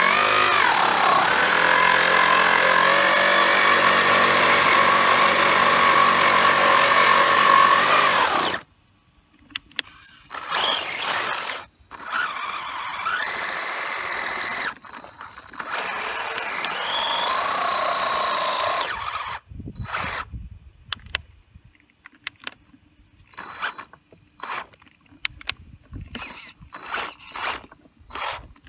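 Brushless electric motor and drivetrain of a Maverick Strada SC RC short course truck whining at high revs as the rear wheels spin against locked front wheels in a line-lock burnout, the pitch dipping briefly and then holding before it cuts off sharply about a third of the way in. Two shorter bursts of the same whine follow, then only scattered short clicks and knocks.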